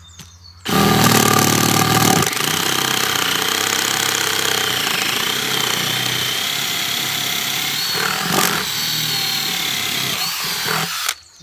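Power drill boring down through a wooden plank. It starts under a second in and runs steadily for about ten seconds with a steady high whine, stopping near the end. The bit is grinding on a screw buried in the plank, which blunts it.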